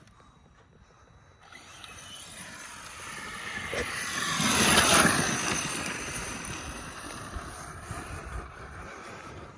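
Arrma Mojave 6S brushless RC truck running on a high-speed pinion, passing by: its motor and tyres grow louder to a peak about five seconds in, then fade as it moves away.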